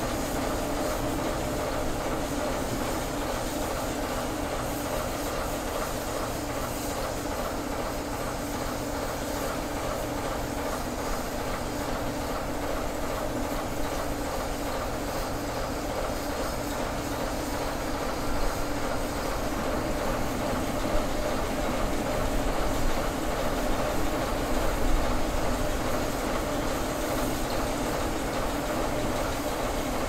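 Diesel locomotive engine running with a steady drone. It grows a little louder, with a few sharp knocks, in the second half.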